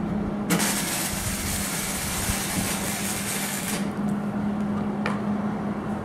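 Electric arc welder running a short weld on steel: a steady hiss starts about half a second in, lasts a little over three seconds and cuts off suddenly.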